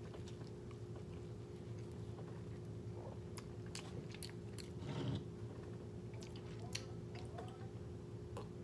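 Close mouth sounds of a man chewing a soft tortilla wrap filled with rice, eggs and kimchi: faint wet clicks and smacks, with one louder mouth noise about five seconds in. A steady low hum runs underneath.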